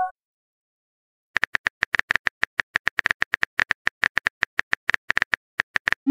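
Phone keyboard typing sound effect: a quick run of short tap clicks, several a second, starting about a second in as a text message is typed. It opens on the end of a chime.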